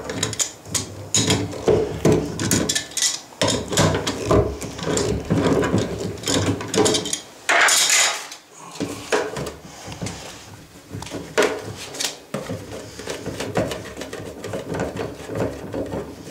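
Hand tools clicking, knocking and scraping on a washing-machine hookup valve and its fittings, in irregular strokes, with a brief rushing noise about eight seconds in.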